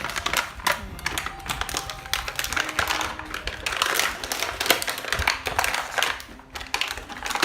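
Toy packaging being unpacked by hand: rapid, irregular clicks, taps and rustles of plastic parts and packaging.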